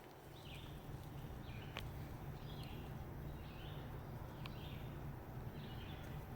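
A bird calling over and over, a short rough call about once a second, with a low rumble underneath and a single sharp click about two seconds in.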